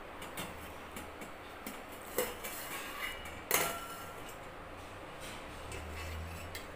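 Stainless steel plate clinking and scraping against the rim of a steel pot as it is handled, lifted and turned over, with a few sharper metal knocks, the loudest about two and three and a half seconds in.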